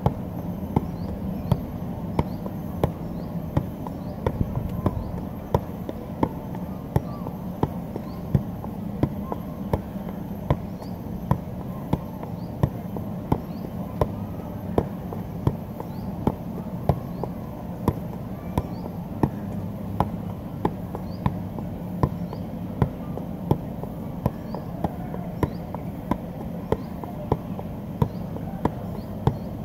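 Soccer ball being juggled on the foot: an unbroken run of sharp thuds, about three touches every two seconds, as the ball is kept in the air.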